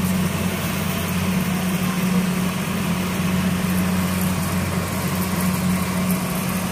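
Rice combine harvester's diesel engine running at a steady pitch, a constant low drone.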